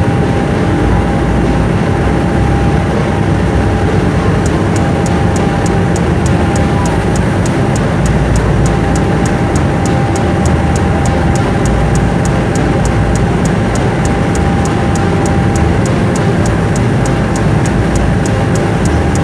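Steady loud rumble and rushing noise of a ferry's engine running under way, mixed with wind on the microphone. From about four seconds in there is also a fast regular ticking, about three to four ticks a second.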